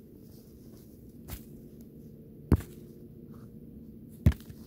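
Chunks of wood and frozen earth thrown by hand into a pit dug in snow, landing with three sharp knocks; the second and third are the loudest.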